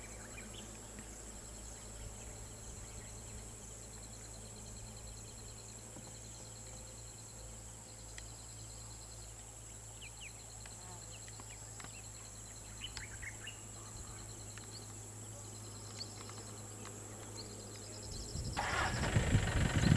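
Quiet bush ambience: insects trilling in repeated bursts over a steady low hum, with a few short bird chirps. About eighteen seconds in, a vehicle engine rumbles up loudly.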